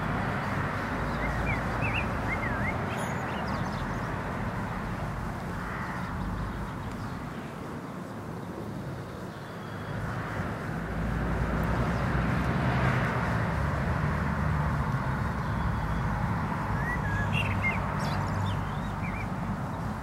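Steady outdoor background noise, a low rumble with a hiss over it, growing louder about halfway through. A few short high bird chirps come a second or two in and again near the end.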